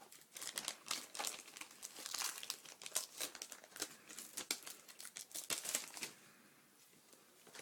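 Foil Pokémon card booster pack wrapper being torn open and handled: a run of crinkling, crackling rustles that stops about six seconds in.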